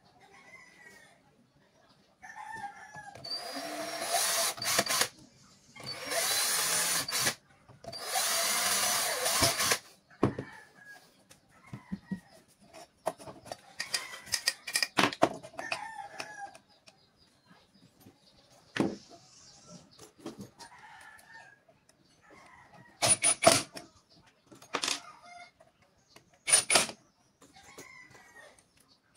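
A cordless drill runs in several short bursts: three runs of one to two seconds in the first third, then quicker blips near the end. Chickens cluck faintly in the background between the runs.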